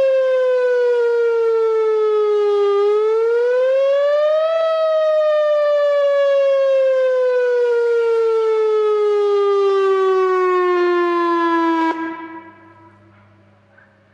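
Whelen OA3 outdoor warning siren sounding a short wail. The pitch falls, sweeps back up about three seconds in, then falls slowly, and the siren cuts off about twelve seconds in as the test signal ends.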